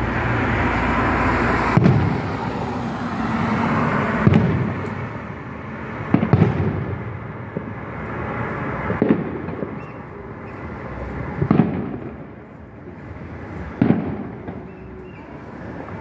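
Aerial firework shells bursting, six booms spaced about two to two and a half seconds apart.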